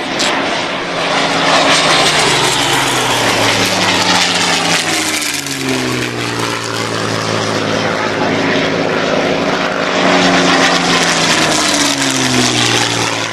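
Piston-engined WWII fighter aircraft flying past overhead, their engines running loud. The pitch drops as planes pass, about five seconds in and again near the end.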